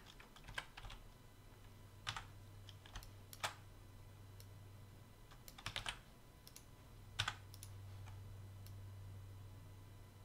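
Scattered keystrokes and clicks on a computer keyboard and mouse, about a dozen sharp taps at irregular intervals, over a faint low steady hum.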